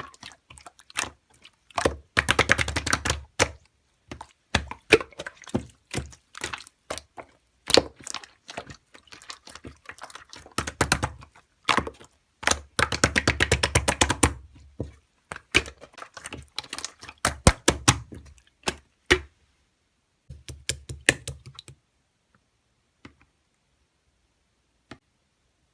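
Slime being squeezed and poked by hand, giving rapid runs of crackling clicks and pops in bursts, stopping about 22 seconds in with a couple of faint clicks after.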